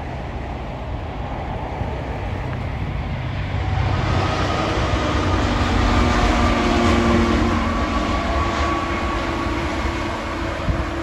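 A passing train's low rumble, then from about four seconds in three Class 66 diesel locomotives, each with an EMD two-stroke V12 engine, pass under power. Their steady engine note is loudest a couple of seconds later and then fades slowly as they draw away.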